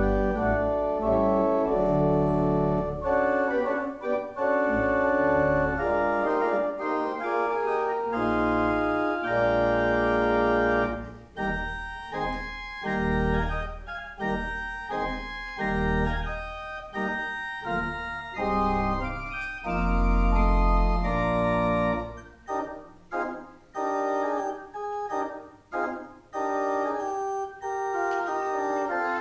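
Church organ playing: chords held over deep pedal bass notes for about the first twenty seconds, then shorter detached chords without the bass.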